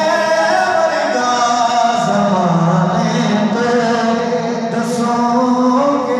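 Man singing a Punjabi devotional naat into a handheld microphone, amplified through a sound system, in long held notes that glide up and down.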